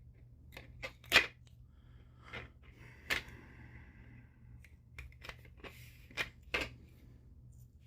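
Scattered clicks, knocks and brief scratchy rustles from hands handling 3D-printed plastic parts and electrical tape, the loudest click about a second in, over a faint steady low hum.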